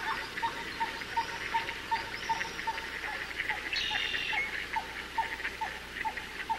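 Marsh wildlife chorus: a steady run of short repeated pips, about four a second, over a busier chatter of fainter, higher chirps. One brief, higher call stands out just before the middle.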